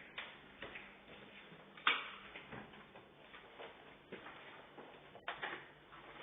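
Irregular light knocks and clicks over a faint hiss, with a sharper knock about two seconds in and another just after five seconds.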